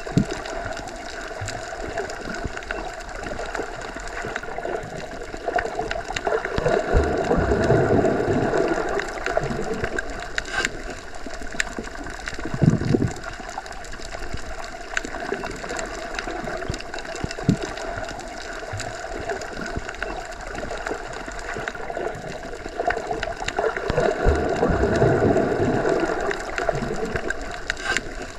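Underwater ambience: a continuous muffled wash of water that swells louder twice, with scattered short clicks and pops.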